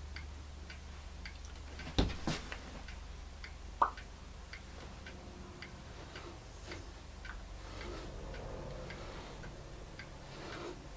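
Steady faint ticking at about two and a half ticks a second over a low hum, with two sharp knocks about two seconds in and a short high squeak just before four seconds.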